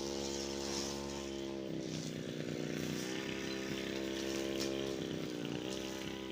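Brush cutter engine running at high revs, its pitch sagging twice as the blade bogs down in thick brush and then picking back up.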